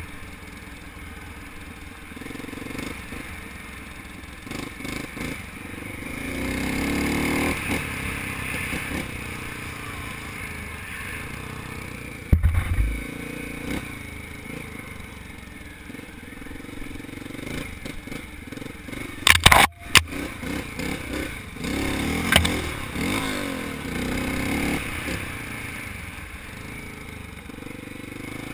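1985 Honda XR600R's single-cylinder four-stroke engine running under way, its note rising and falling with the throttle. Two loud sudden knocks stand out, about twelve and twenty seconds in.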